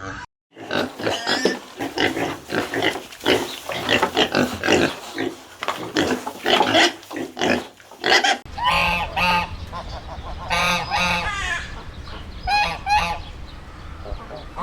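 Farm animals calling in two back-to-back clips: first a crowded run of overlapping calls, then, after a cut about eight seconds in, separate calls in short groups over a steady low hum.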